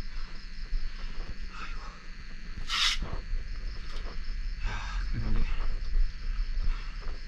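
Insects chirping in a steady, fast, high-pitched pulse, with rustling handling noise and one brief, loud hiss about three seconds in.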